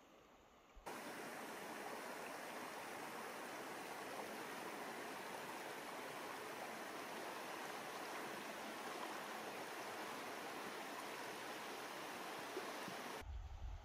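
Steady rush of flowing river water, starting abruptly about a second in and cutting off just before the end.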